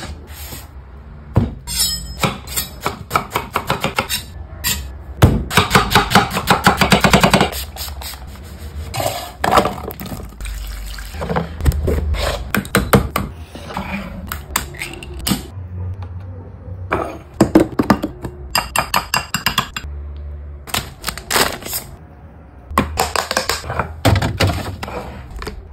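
Close-miked cookware handling: an aluminium pressure-cooker lid is set and turned onto its pot, followed by many separate knocks, clicks and thumps, including a dense run of rapid clicks a few seconds in, as containers and utensils are handled on a wooden board.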